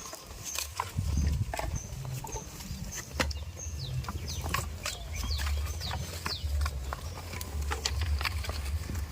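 Farmyard ambience: short, high, falling chirps of small birds or chicks repeat throughout, with scattered sharp clicks and knocks over a steady low rumble.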